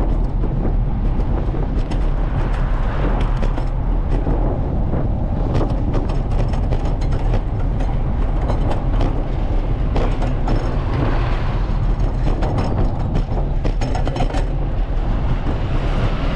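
Steady low rumble of wind and tyre noise from a bicycle rolling along city asphalt, with scattered light clicks and rattles.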